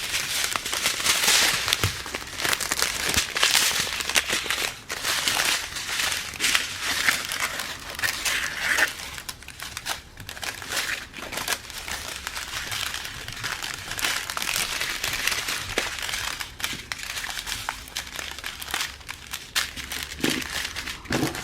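Plastic packets of diamond-painting drills crinkling and rustling as they are handled, with small irregular clicks throughout.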